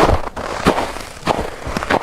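Footsteps crunching through snow at a steady walking pace, about four steps in two seconds, each a short crackly crunch.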